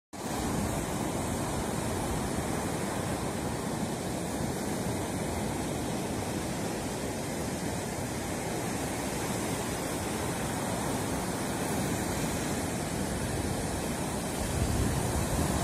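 Baltic Sea surf breaking and washing onto a sandy beach, a steady rushing hiss of waves. Near the end, uneven low rumbles of wind buffeting the microphone come in.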